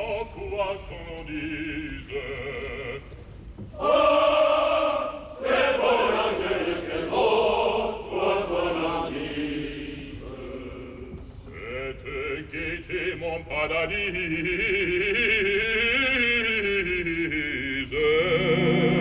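Opera singing: a male operatic voice sings a solo line while a chorus joins in, in fuller passages that come and go.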